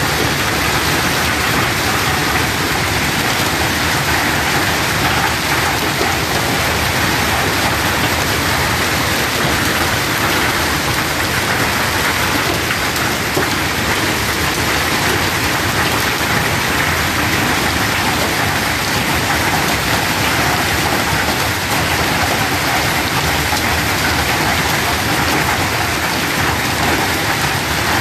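Heavy hail mixed with rain falling on a wet tarred street: a dense, steady clatter and hiss with no let-up.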